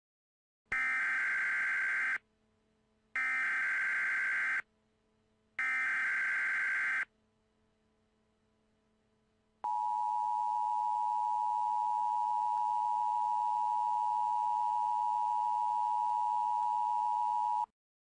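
Emergency Alert System SAME header: three identical bursts of digital data tones, each about a second and a half long, followed by the EAS two-tone attention signal, a steady dual tone held for about eight seconds, cutting off shortly before the end.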